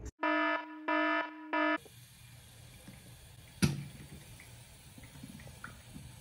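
Three short buzzer-like beeps, then a tap running into a bathroom sink as a plastic surgical drain bottle is rinsed by hand, with one sharp knock a little past halfway and small plastic clicks after it.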